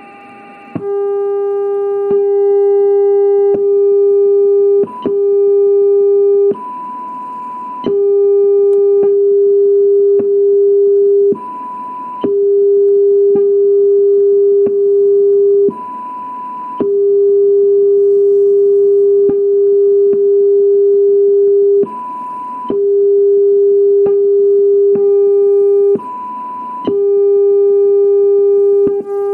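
AM-demodulated receiver audio from a FunCube Dongle Pro Plus in Linrad: a loud steady low test tone from a strong signal generator, switched off and back on about seven times. In each gap a fainter, higher test tone from a signal 80 dB weaker comes through with hiss at once, which shows a very fast AGC recovering from the strong signal.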